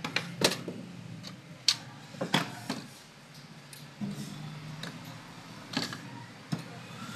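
Irregular sharp clicks and knocks, about a dozen spread unevenly, over a faint steady low hum.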